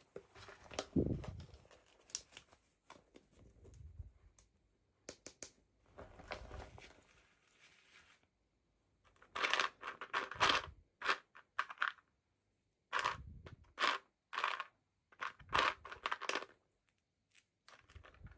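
Toy packaging being opened by hand: irregular bursts of tearing and crinkling with sharp clicks, separated by short quiet pauses, busiest in the second half.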